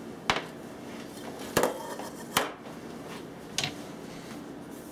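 Cookware being handled on a glass-top electric stove: a stainless saucepan and a glass pot lid set down, with four sharp clinks and clunks about a second apart.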